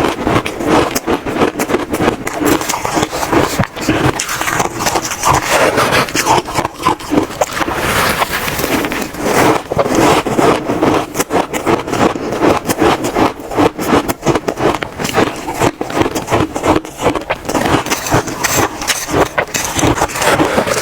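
Close-miked crunching and chewing of frozen shaved ice, a dense run of crackles and scrapes that goes on without a pause.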